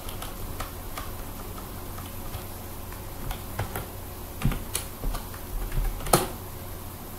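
Computer keyboard keystrokes: scattered, irregular key presses, with one louder keystroke about six seconds in.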